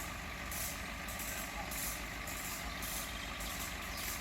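Off-road 4x4 engine idling steadily, with short hissing bursts about every half second.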